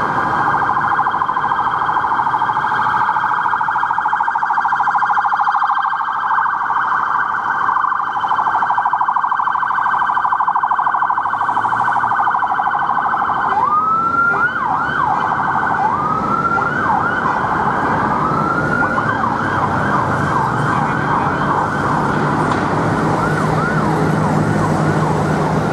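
Police car siren sounding loudly: first a rapid pulsing tone, then, about halfway through, sweeping tones that rise and drop, quickening into a fast yelp.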